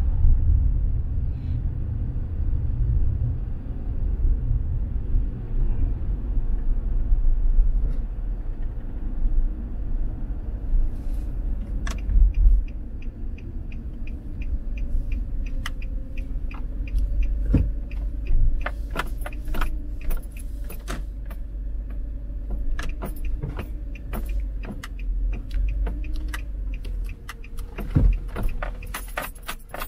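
Car driving on a residential street, heard from inside the cabin: a steady low road rumble. From about a third of the way in, irregular light clicks and rattles join it and grow denser toward the end.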